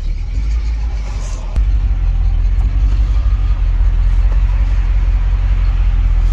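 Ford F-150 pickup's engine running, heard from inside the cab as a deep, steady rumble that gets louder about a second and a half in.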